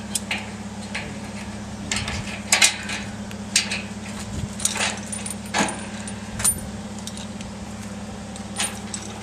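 Scattered metallic clinks and rattles of hooks and straps being fastened around a car's wheel for lifting, over a steady low hum.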